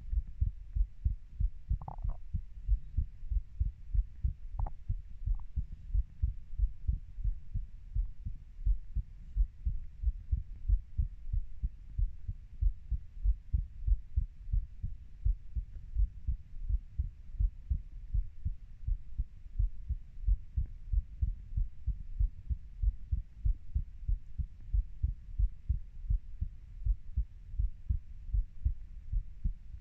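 Human heartbeat: a steady, even rhythm of low thuds. A faint brief higher-pitched sound comes in about two seconds in and again near five seconds.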